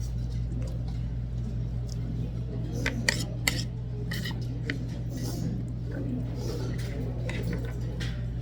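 Eating utensils clicking and clinking against dishes, a scatter of sharp clinks, the loudest about three seconds in, over a steady low hum.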